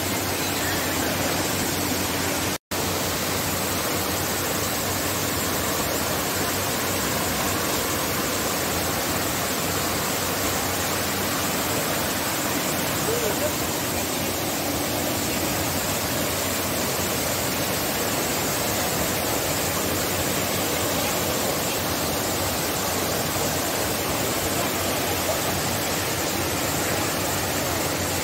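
Steady rushing water, an even hiss with no pitch to it, with one very brief dropout about two and a half seconds in.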